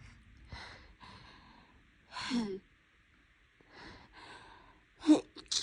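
A woman with a stuffy nose sniffling and breathing unevenly, with a loud voiced gasp about two seconds in, then a sneeze near the end: a sharp voiced intake followed by a hissing burst.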